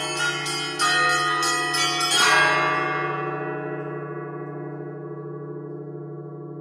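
A set of eleven church bells rung by hand ropes and a foot pedal: a few quick strokes on the smaller bells, then the loudest stroke about two seconds in, after which no more are struck and the bells ring on and slowly fade over the steady low hum of the largest bell. These are the closing strokes of the peal.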